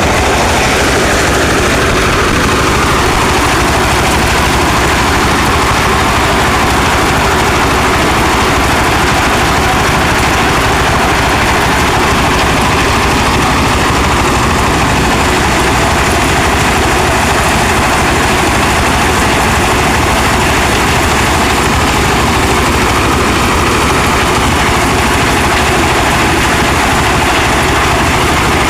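Heavy farm machinery with a large engine running steadily and loudly, with no pauses, as in corn harvesting or shelling work.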